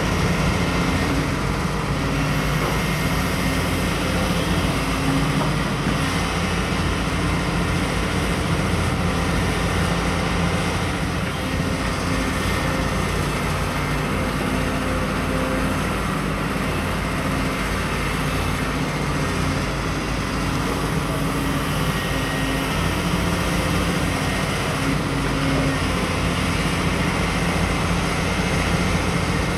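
Diesel engines of two tracked excavators, a Daewoo 255LC and a Komatsu PC290, running under load while digging: a steady low drone whose pitch rises and falls a little as the hydraulics work.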